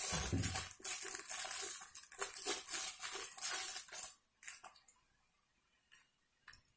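Clear plastic wrapper crinkling and rustling as a pair of sunglasses is worked out of it, stopping about four seconds in; a few light clicks follow.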